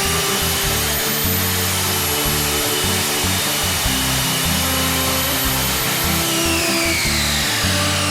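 Ozito 1600W compound mitre saw running at full speed with a steady high whine, then switched off about six seconds in, its blade spinning down with a falling whine.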